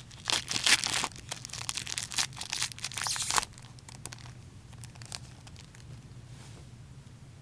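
Plastic wrapper of a hockey card pack crinkling and tearing as it is opened by hand, a dense crackle that stops about three and a half seconds in, followed by a few faint rustles.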